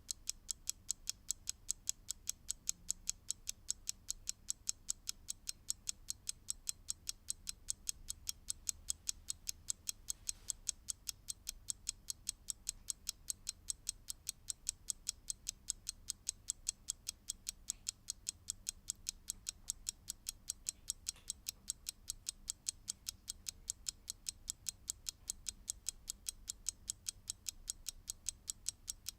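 Mechanical clock ticking steadily, several sharp, evenly spaced ticks a second.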